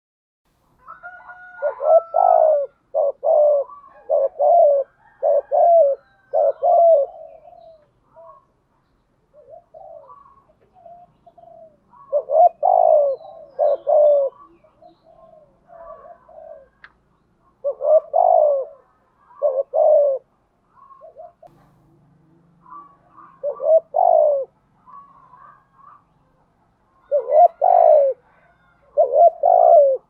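Spotted dove cooing. About five phrases of several short, low coos each come a few seconds apart, the first and longest starting a second or two in, with faint soft notes between the phrases.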